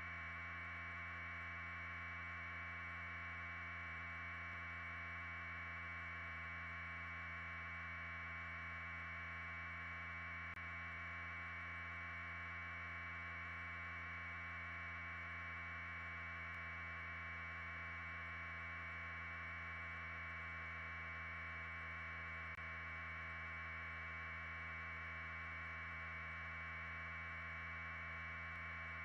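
A steady, unchanging hiss with a low hum beneath it, electronic in character, with no rise, fall or separate sounds.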